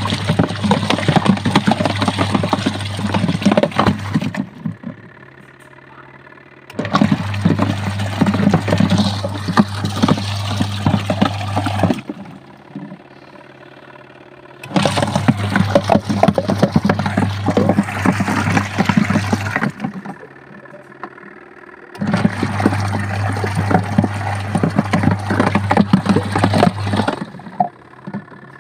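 Adler AD8051 mini washing machine on its wool cycle: the motor and washing impeller run in bursts of about five seconds, churning the water with a steady hum, then pause for two to three seconds, four times over. This is the gentle start-stop agitation of a wool wash.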